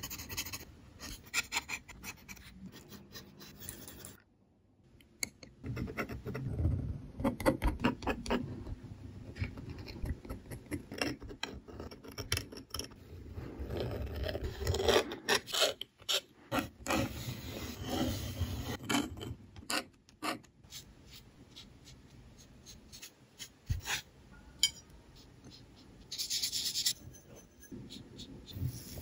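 Pencil and ink pens scratching and rubbing across drawing paper in quick, irregular strokes, with a short pause about four seconds in.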